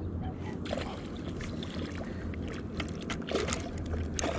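Water sloshing and splashing beside a kayak as a hooked catfish thrashes at the surface, with scattered light clicks and knocks over a steady low rumble.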